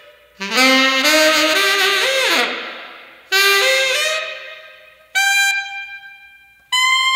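Jazz soundtrack music with brass and saxophone, played in four separate phrases that each start sharply and fade away. The last two are single held notes, each higher than the one before.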